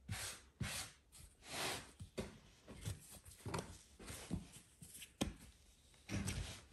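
Dough being kneaded by hand: soft, irregular pats and thuds of the dough pressed and turned on the work surface.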